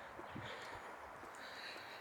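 Faint outdoor town ambience, with a few soft low thumps in the first second and a brief high tone near the end.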